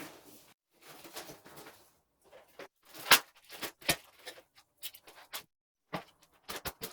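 Tape being pulled off the roll and pressed onto plastic moisture-barrier sheeting: short, irregular rasps and crinkles with brief pauses, the loudest about three seconds in.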